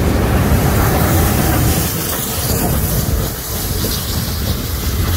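Steam train hauled by Victorian Railways R-class steam locomotive R707 rolling past close by, a loud rumble of wheels on the rails with steam hissing. It eases off a little about three seconds in as the train moves away.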